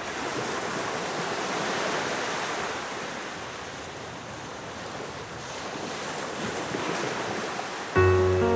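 Waves washing in, a rushing wash of water noise that swells and eases. Near the end, music starts with a low bass and plucked notes.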